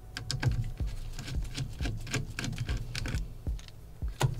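Irregular light clicks and taps of small metal parts and a screwdriver being handled while a laptop's heat sink assembly is taken off its motherboard, with a low steady hum underneath.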